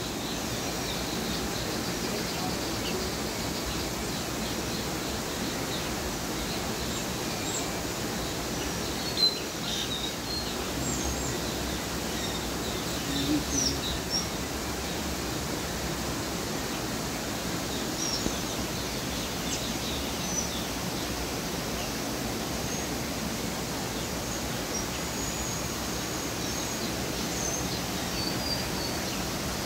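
Steady, even outdoor background noise with faint, scattered bird chirps above it.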